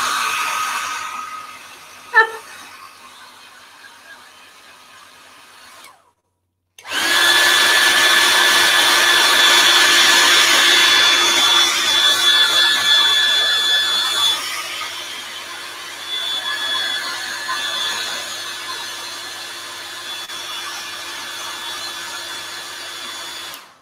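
Handheld electric hair dryer blowing on a Powertex-coated leaf to dry the wet Bister so it crackles: a steady rush of air with a high motor whine. It drops away about a second in, cuts out briefly at about six seconds, comes back strong at about seven, and eases somewhat after about fourteen seconds.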